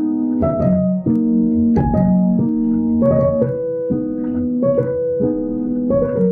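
Slow, gentle piano music: struck notes and chords ringing on, a new one about every two-thirds of a second in an even, unhurried melody.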